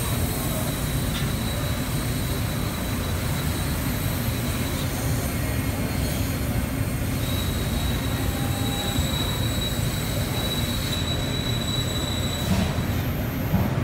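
LVD Strippit ToolCell electro-hydraulic press brake running: a steady low hum with a thin high whine that comes in about seven seconds in and stops near eleven seconds, over steady hall noise.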